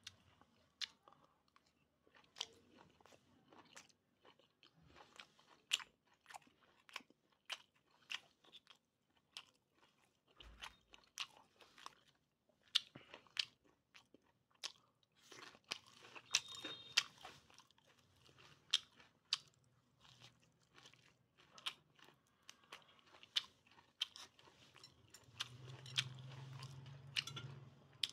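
Close-up chewing of boiled pork, crunching with many sharp, irregular clicks between the teeth. A low hum joins near the end.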